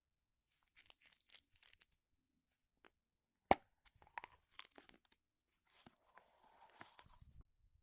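Faint crinkling and tearing handling sounds, with one sharp click about three and a half seconds in and a longer run of crinkling near the end.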